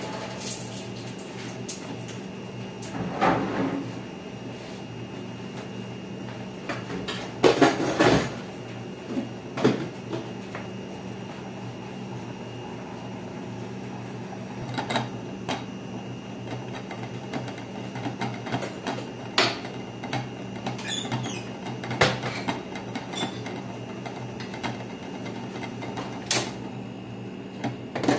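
Covered pot of noodle soup simmering on the stove under a glass lid, with a steady low hum and scattered sharp clicks and knocks, the loudest a cluster about seven to eight seconds in.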